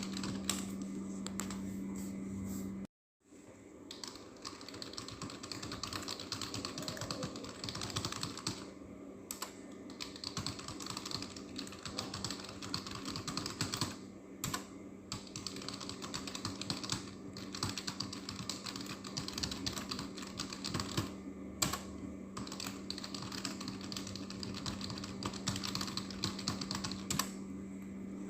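Fast typing on a computer keyboard: a dense, continuous stream of key clicks with a few short pauses, over a steady low hum. The sound cuts out completely for a moment about three seconds in.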